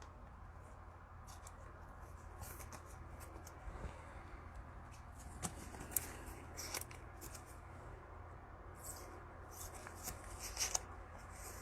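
Football trading cards being handled: faint rustling and light clicks of cards and plastic, with a few sharper ticks about halfway through and a small cluster near the end.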